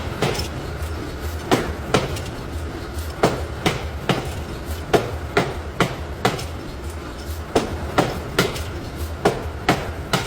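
Hammer blows on metal being forged, about two strikes a second at uneven spacing and varying strength, over a steady low machine hum.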